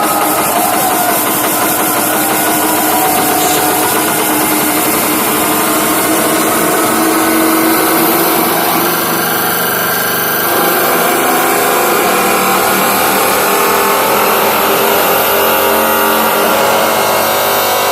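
Hardstyle music on a festival sound system, loud and distorted, with sustained synth tones and no clear beat.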